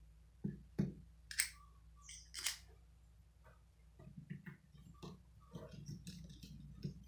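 Screwdriver work on the wooden cabinet of a Polytron active speaker as its screws are taken out: a few sharp clicks and knocks in the first couple of seconds, then a run of small irregular scrapes and rustles from about four seconds in.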